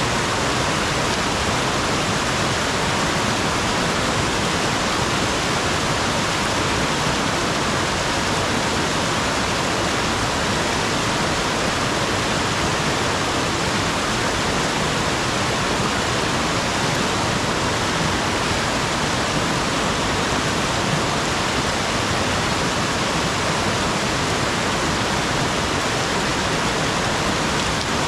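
A steady, even rushing noise with no breaks, changes or separate events, like fast-flowing water.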